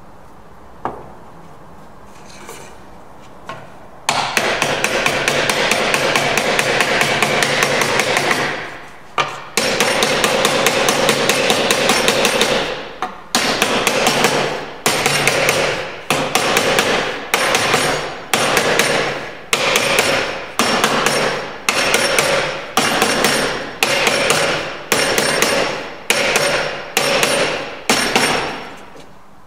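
A wooden joiner's mallet strikes a wooden block laid across a softwood bridle joint, driving the joint home. After a few quiet seconds with a couple of light knocks, there are two long runs of rapid blows. These are followed by single blows about a second apart, each dying away quickly.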